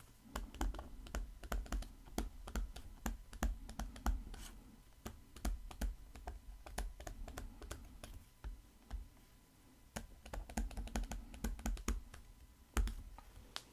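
Stylus tapping and scratching on a tablet screen while writing by hand: a faint, irregular run of light clicks, with a brief pause a little past halfway.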